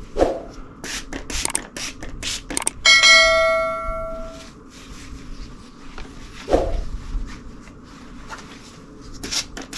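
Trigger spray bottle squirting a Dawn dish soap and water solution onto a shirt in a series of short spritzes. About three seconds in, a single bell-like chime rings out and fades over a second or so, louder than the spraying.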